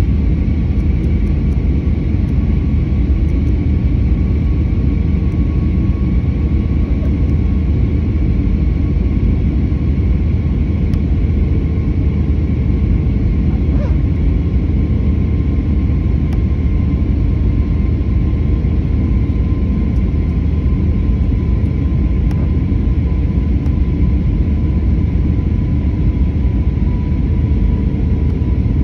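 Steady cabin noise inside an Airbus A320-family jet on approach to landing: a deep rumble of engines and airflow, with a faint steady whine above it.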